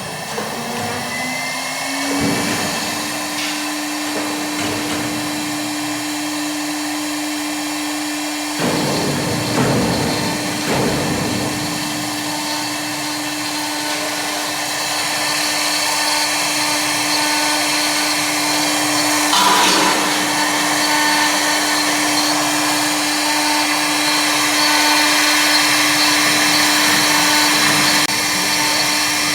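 CNC wood turning lathe's motor spinning up over about two seconds to a steady hum. A louder, hissing rush from the machine builds in the second half.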